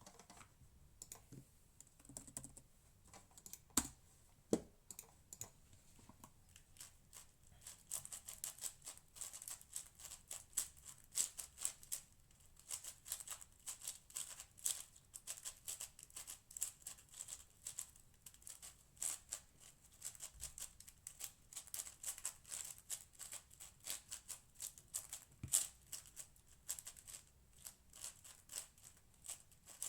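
Plastic layers of a Cosmic Shadow M 6x6 speedcube clicking as it is turned by hand. The clicks are sparse for the first several seconds, then become a rapid, continuous clatter of turns from about eight seconds in, as the solve gets going.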